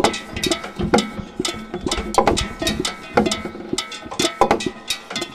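Metal saucepans knocked and clanked by a springador puppy nosing and licking at them: an irregular clatter of two or three knocks a second, each with a short metallic ring.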